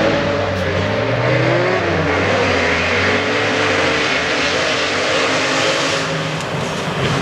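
Rally car engine at high revs, the pitch rising and falling through gear changes, over loud road and exhaust noise.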